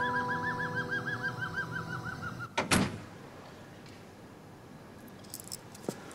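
A bird's rapid trill of quick, evenly repeated rising-and-falling chirps, about six a second, runs over a lingering music note for about two and a half seconds. It is followed by a single sharp thud, then a few faint taps near the end.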